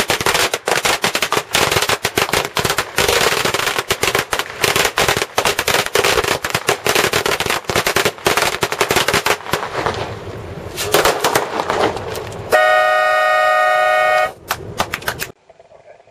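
A string of firecrackers going off in rapid crackling bangs for about ten seconds, thinning out toward the end. Near the end a horn sounds once for under two seconds, followed by a few last pops.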